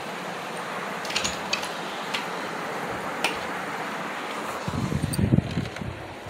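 Steady hiss of room noise with a few light clicks. From about five seconds in come low rumbling bumps of handling noise on a handheld phone's microphone.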